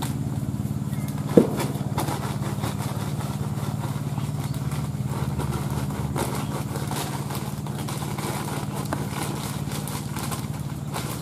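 An engine running steadily at idle, with a few small clicks and one sharp tap about a second and a half in.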